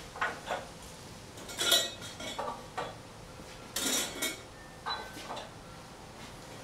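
Loose Simpson Strong-Tie steel brackets clinking and rattling against each other as they are handled: a scattered string of short, sharp metallic clinks, the loudest just under two seconds in.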